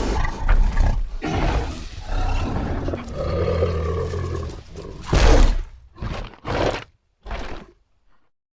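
Giganotosaurus film sound effect: a long, rough roar lasting several seconds, then four short, sharp bursts of breath, dying away near the end.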